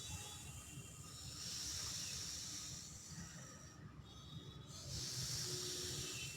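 Long hissing breaths drawn in through the mouth with the tongue pressed to the roof of the mouth, air whistling past the sides of the tongue, in a cooling pranayama breath. Two long hisses come one after another, with a short quieter break between them a little past the middle.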